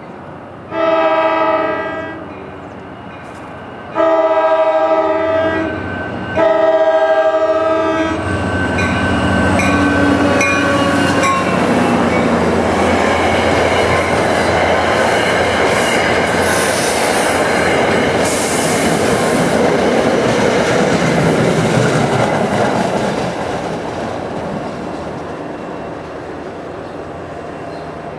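Diesel locomotive's multi-chime air horn sounding three blasts, then the train passing at speed, wheels clattering over the rail joints, before it fades away.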